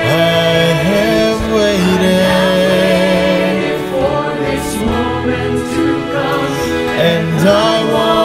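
Virtual choir of men's and women's voices, recorded separately and mixed, singing a gospel worship song in harmony, with long held notes.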